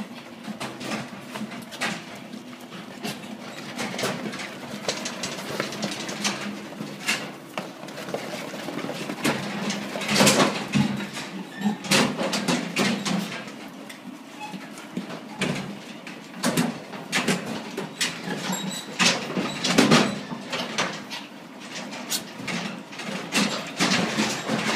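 Pigs grunting while piglets jostle about, with many sharp clicks and knocks of hooves and bodies on the slatted floor and metal crate bars. The grunting and knocking grow louder in bursts about ten, twelve and twenty seconds in.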